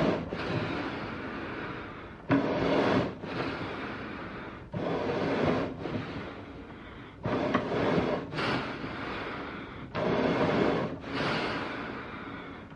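Slow, heavy animal breathing, eerie in character: about four breaths, one every two and a half seconds or so, each starting suddenly and fading away.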